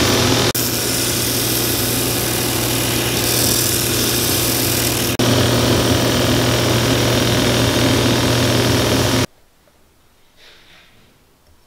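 Shoe repair finishing machine running steadily with a low hum while a boot's heel edge is held against its sanding wheel. The noise jumps at two hard cuts and stops abruptly near the end, leaving faint handling sounds.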